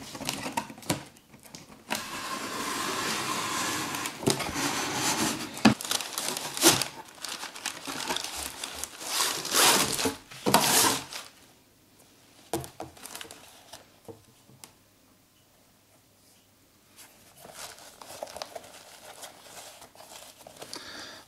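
Tissue paper rustling and crinkling and a cardboard shoebox being handled while sneakers are unpacked, with scattered light knocks. The loudest crinkling comes about two and ten seconds in, and there is a near-quiet stretch a little past the middle.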